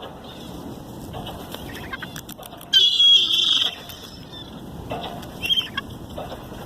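Gulls squawking as they squabble over food: one loud, harsh call about three seconds in, then shorter calls near the end.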